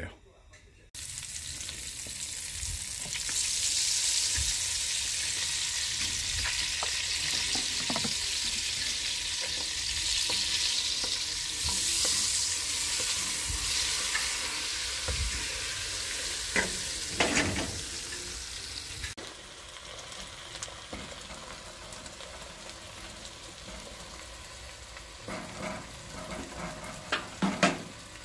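Chopped onions and the white part of green onions sizzling as they are sautéed in butter and oil in a pan, stirred with a utensil that clacks and scrapes now and then. The sizzle starts about a second in and drops to a quieter level about two-thirds of the way through.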